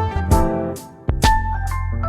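Background music: keyboard and bass chords over a steady drum beat.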